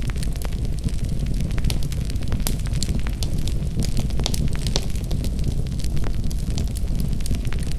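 Wood fire crackling in a fireplace: frequent sharp, irregular pops and snaps over a steady low rumble.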